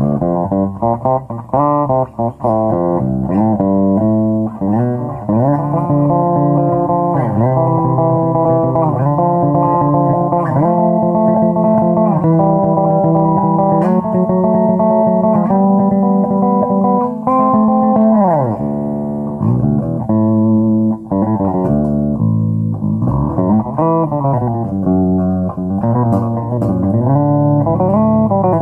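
Electric bass guitar played through a Markbass combo amplifier with a 12-inch speaker and tweeter: a run of notes with frequent slides up and down the neck and some held notes, the amp working cleanly after repair.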